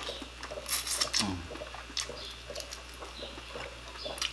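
Close-up eating sounds of a seafood boil eaten by hand: wet chewing, lip-smacking and sucking at shellfish, loudest about a second in, followed by a short falling hum.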